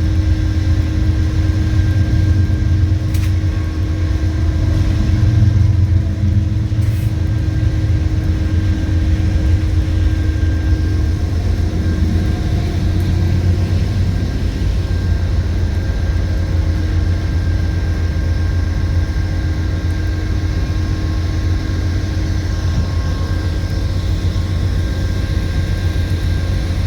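Diesel train rumbling steadily: a strong low drone with a few steady tones above it.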